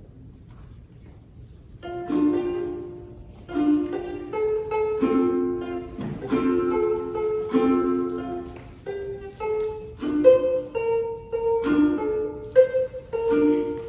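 Ukulele playing: after a short pause, a tune of plucked notes and chords begins about two seconds in, each note dying away.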